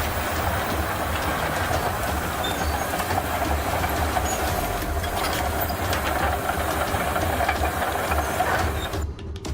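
Heavy machinery's diesel engine running steadily under load, a deep rumble with a hissing, grinding noise over it and scattered crackles. It cuts off abruptly near the end.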